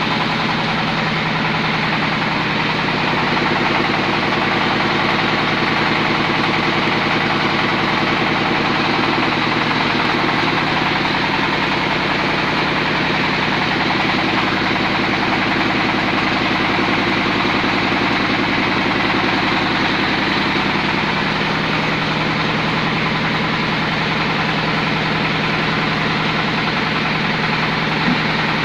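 Size-70 bakso (meatball) meat grinding machine running steadily, a constant mechanical hum with no change in speed.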